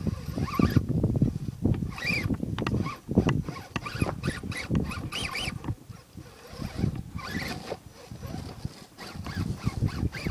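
Wind buffeting the microphone in uneven gusts, with short rising-and-falling high whines now and then.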